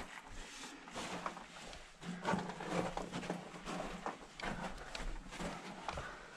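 Footsteps crunching and scuffing on the rock and gravel floor of a mine tunnel, in an irregular run of soft knocks.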